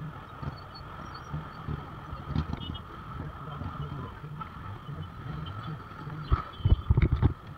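Traffic noise in a crawling jam of motorcycles and scooters: a steady low engine rumble, with a few dull thumps near the end.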